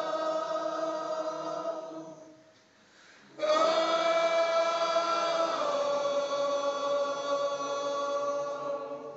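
Concert crowd singing along together on long held notes. The voices fade out about two seconds in, come back in loudly all at once a second later, and hold a long note that steps down in pitch midway.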